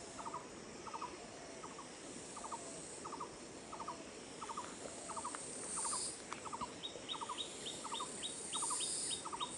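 Wildlife calls: a short triple chirp repeating steadily about one and a half times a second. About seven seconds in, a faster, higher series of chirps joins it.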